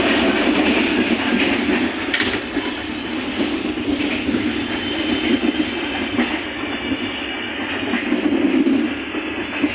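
Passenger train running on the rails, heard from inside the carriage: a steady rumble of wheels on track with a sharp clack about two seconds in.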